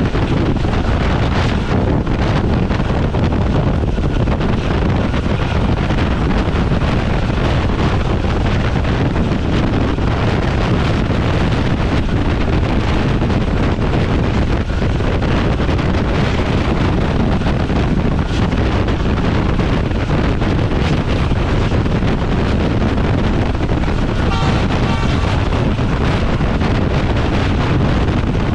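Steady rush of wind and running noise from a passenger express train travelling at speed, with wind buffeting the microphone. A short pulsing tone sounds briefly about 24 seconds in.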